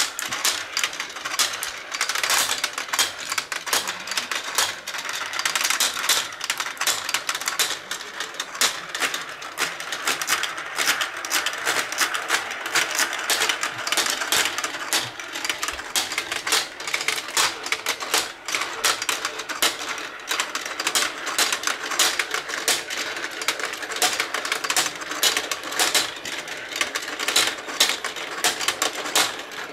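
Many marbles rolling, dropping and clicking through a GraviTrax marble run's stacked plastic track tiles: a continuous dense rattle of small clicks and clatters.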